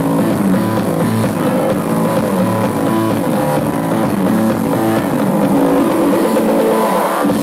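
Loud music played over a club sound system, the lowest bass dropping out briefly near the end.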